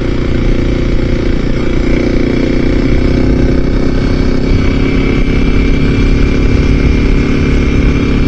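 Motorcycle engine running at a steady cruise, heard through a helmet-mounted microphone, with wind rumble on the mic underneath.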